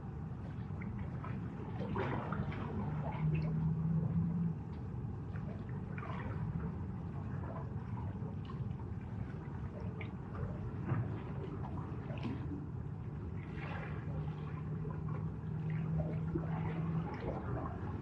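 Small sea waves lapping and splashing at the shore in irregular strokes every second or two. A faint low steady hum comes in twice, briefly and then for a few seconds near the end.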